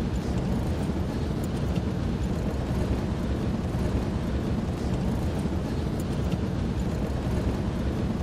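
Steady low rumble of a vehicle's engine and tyres on the move, heard from inside the cabin.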